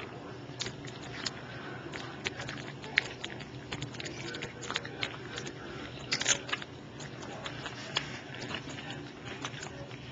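A cat crunching dry kibble off the floor: irregular crisp crunches and clicks of chewing, with a louder run of crunches about six seconds in.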